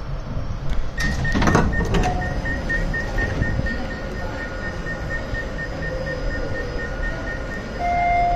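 Subway train slowing into an underground station. The car rumbles steadily under a high whine that pulses rapidly, with a brief clatter about a second in and short steady tones near the end as it brakes.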